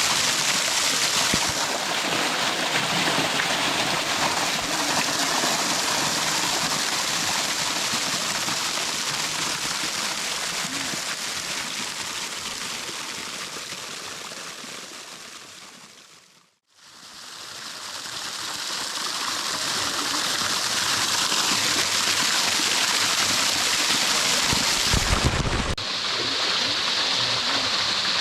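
Steady rushing water of a small canyon waterfall, with no pitch to it. About two-thirds through it fades out to silence and fades back in, and a brief low rumble comes near the end.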